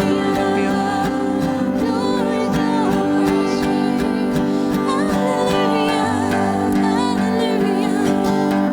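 Worship song: acoustic guitar and held chords under a sung melody.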